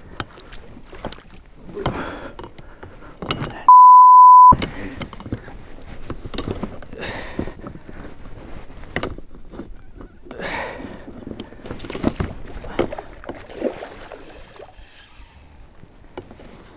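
A loud, steady one-tone beep lasting under a second, about four seconds in, with all other sound cut out under it, typical of a censor bleep edited over a word. Around it, scattered knocks, clicks and rustles of an angler handling a spinning rod and reel in an inflatable boat while playing a pike.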